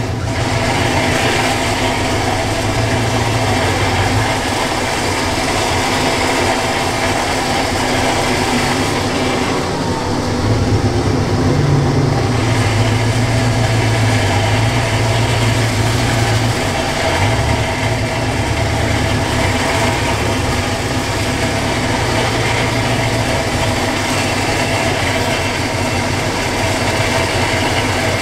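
Vehicle-mounted winch reeling in its line under load, pulling a high-centred Toyota Land Cruiser 75 backwards out of a water-filled mud hole, over a steady engine idle. A deeper, stronger hum sets in about ten seconds in and eases off a little past twenty seconds.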